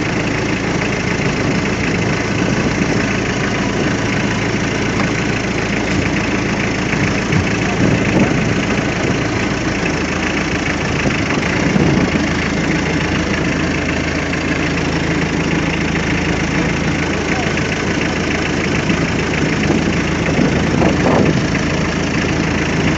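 Small fishing boat's engine idling steadily, with a few brief knocks about a quarter of the way through.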